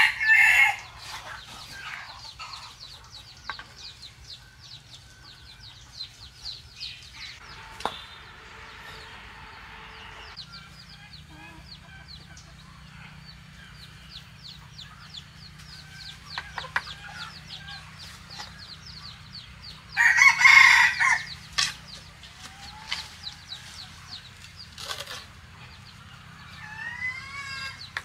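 A rooster crowing: the end of one crow at the very start and one full loud crow about twenty seconds in. In between, chickens cluck softly and a mason's trowel taps and scrapes on concrete blocks and wet mortar.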